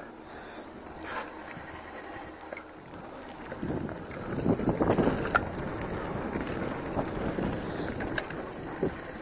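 Mountain bike riding a dirt singletrack trail: tyres rolling over the ground with rattles from the bike and a few sharp clicks. It grows louder and rougher from about four seconds in for a couple of seconds, then settles.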